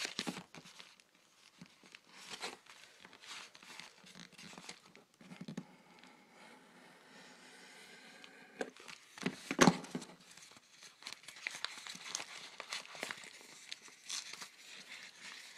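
Mailer envelope being cut and torn open by hand, with crinkling and rustling of the paper and plastic packaging and scattered small handling clicks. One sharper knock about ten seconds in.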